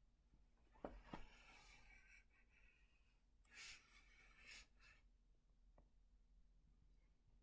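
Near silence: faint rustling of shredded toilet paper and bedding as a kitten rolls in it, with two soft knocks about a second in and two short, soft hissing noises around the middle.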